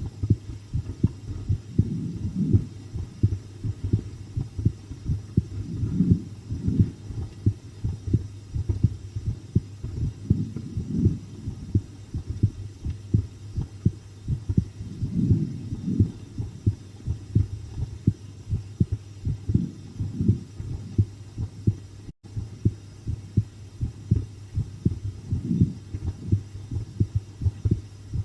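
A person's heartbeat recorded close up, a steady run of quick low lub-dub thuds over a steady low hum, which the recordist thinks is beating faster than usual from watching a scary video. The sound cuts out for a moment about two-thirds of the way through.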